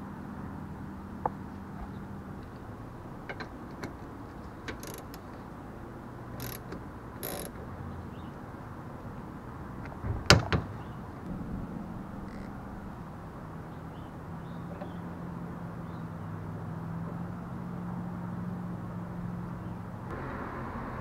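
Metal suspension parts and hand tools being handled: scattered small clicks and clinks, with a loud double knock about halfway through, over a steady low hum.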